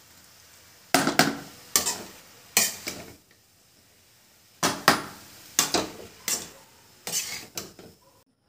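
Metal spoon clanking and scraping against a steel kadai while tossing shredded cabbage and spices for a momo filling. The strikes come in two spells of quick clatters, one starting about a second in and another from about halfway through.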